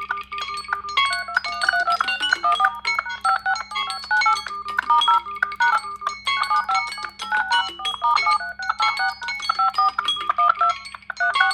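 Smartphone ringtone playing: a quick, looping tune of short, bright notes that briefly pauses near the end and starts over.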